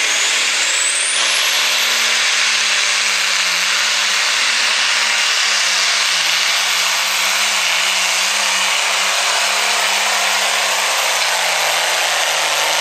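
Light Pro Stock pulling tractor's turbocharged diesel engine running flat out under heavy load as it drags the weight-transfer sled down the track, loud and steady throughout. A high whine rises over the first two seconds as the engine spools up.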